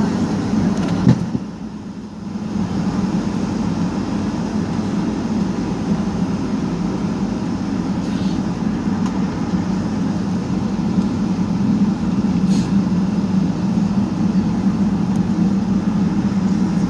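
Boeing 757-200 taxiing, its engines heard from inside the passenger cabin as a steady hum and rumble. A knock about a second in is followed by a brief drop in level.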